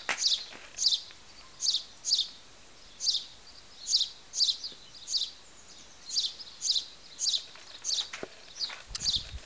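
A small garden bird chirping over and over: short, high, falling chirps at about two a second.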